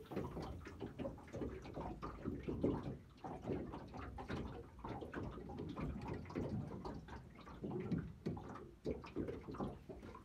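Water lapping and slapping irregularly against the hull of a small boat, with small knocks.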